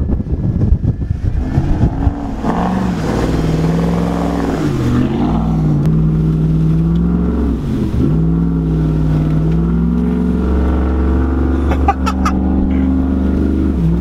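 Lifted pickup truck's engine pulling steadily through deep snow, with the revs dipping briefly and coming back twice, about four and eight seconds in. Wind buffets the microphone for the first two seconds.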